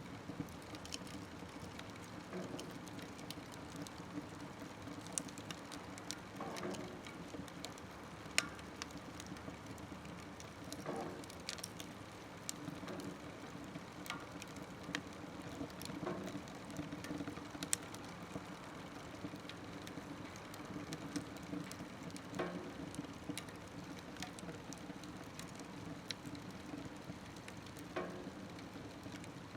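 Wood fire burning in a small smokeless wood stove: a steady hiss and low rumble of the flames, with irregular sharp crackles and pops from the burning wood every second or two.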